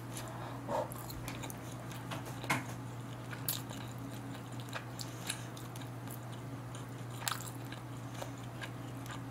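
A person chewing a mouthful of food, with soft wet mouth clicks now and then, over a steady low hum.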